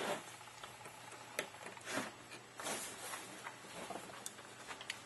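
Light handling of a Cyma CM-028 airsoft gearbox's metal shell and a precision screwdriver on a tabletop: a few sharp faint clicks between soft rustles.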